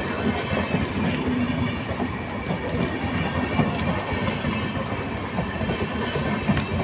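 Indian Railways passenger train of red LHB AC coaches rolling past close by: a steady rumble of wheels on rails, with occasional clicks at the rail joints.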